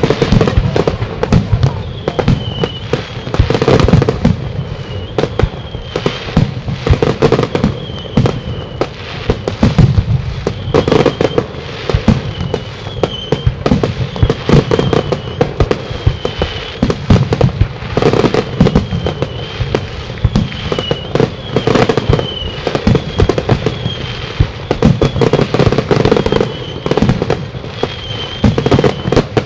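Aerial firework shells bursting in quick succession: a continuous run of bangs and crackles, with heavier booms every few seconds.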